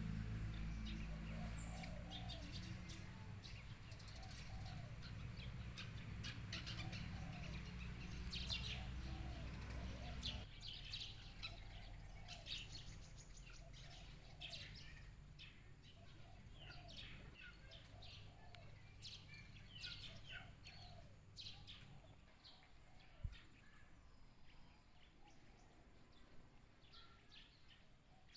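Birds chirping and calling: many short high chirps over a lower call that repeats again and again. A low hum runs underneath and drops away about ten seconds in, and a single sharp click comes near the end.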